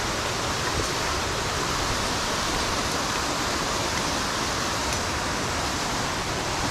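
Steady rush of flowing creek water: an even, unbroken hiss with no change in strength.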